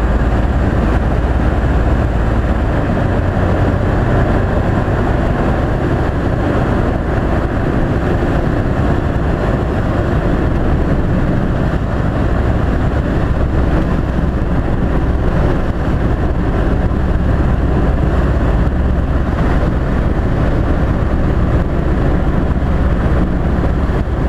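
Ikarus C42 microlight's engine and propeller running steadily, with wind noise, heard from inside the cockpit during a go-around.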